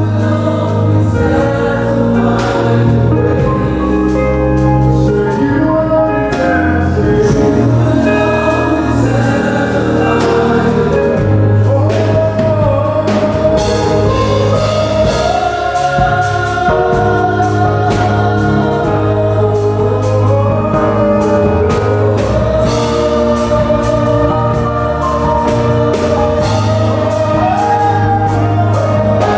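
Gospel worship music: a choir singing over sustained bass notes, with a steady beat of percussion.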